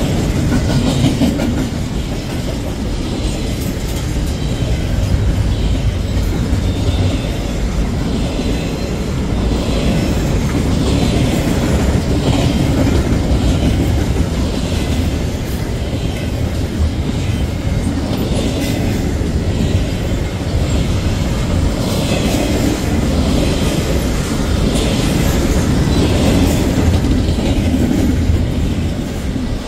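Double-stack intermodal freight cars rolling past on the main line: a steady low rumble of steel wheels on rail with a regular clickety-clack of wheels striking about once a second.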